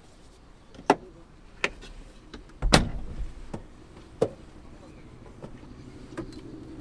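A series of sharp knocks and clicks, the loudest a heavy thump about three seconds in, then a steady low engine hum sets in about five seconds in.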